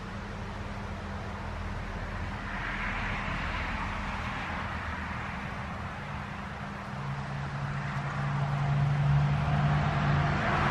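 A motor vehicle's engine hums low and steady, growing louder over the last few seconds, over a rustle of wind through birch leaves that swells a couple of seconds in.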